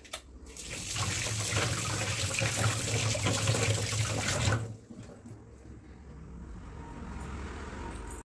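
Water running from a tap into a sink: a strong flow for about four seconds, then a weaker flow until it cuts off.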